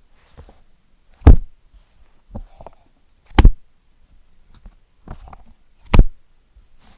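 Paper book pages being flipped, with three loud page snaps about two seconds apart and softer rustles of paper between them.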